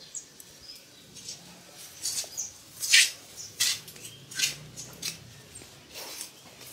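Quiet yard ambience with scattered short clicks and faint high chirps, several of them spread over the last four seconds.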